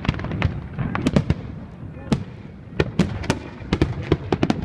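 Fireworks going off: a rapid, irregular string of sharp bangs and pops, coming in quick clusters with a short lull a little before the middle and a dense run near the end.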